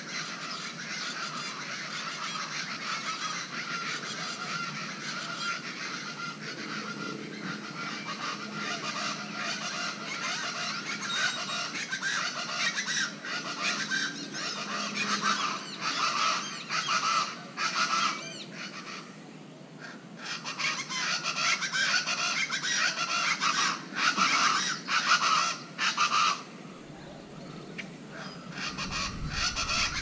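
A chorus of plain chachalacas calling, a dense run of rapid repeated calls with a short lull about two-thirds of the way in, then picking up louder.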